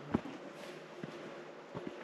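Hiking footsteps on rocky scree: a few irregular steps, the loudest a sharp knock about a quarter second in, then lighter steps near one second and two close together near the end.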